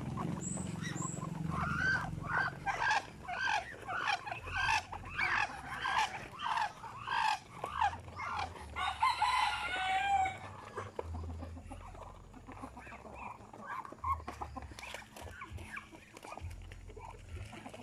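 Chickens in a feeding flock: a run of short, repeated clucking calls, about two a second. Then a rooster crows once, about halfway through, ending on a falling note. Fainter scattered clucks follow.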